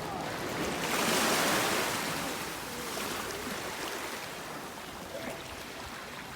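Ocean surf washing ashore, a wave swelling about a second in and slowly fading.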